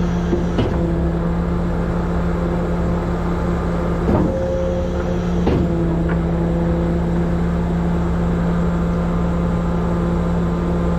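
Truck engine running steadily under way, with a few short knocks, once near the start and twice around the middle.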